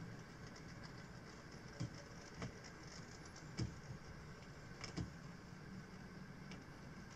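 Faint steady hum of N scale model trains running, with about five light clicks and taps, the loudest a little past the middle, as small model cars are handled by hand on the track.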